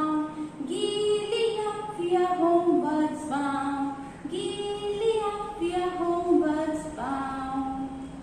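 A high female voice singing a nursery rhyme, apparently unaccompanied, in a bouncy sing-song melody of short held notes stepping up and down, with brief breaths between phrases.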